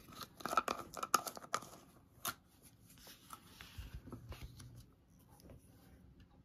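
A plastic screw lid is twisted off a jar of paint, a quick run of small clicks and scrapes in the first two seconds, followed by quieter handling noise as a brush goes into the paint.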